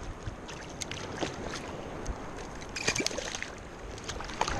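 Shallow surf water sloshing and splashing around a wading angler's arm as a ladyfish is let go in the water, with a cluster of splashes about three seconds in.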